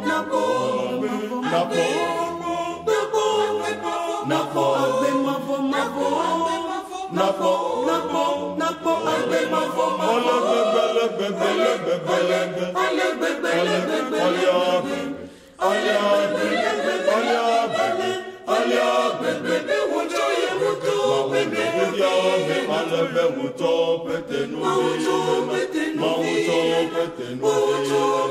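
Mixed church choir singing in four parts (soprano, alto, tenor, bass) with no accompaniment: a choral setting of John 3:16 in the Ewe language. The singing breaks off briefly about fifteen seconds in, then resumes.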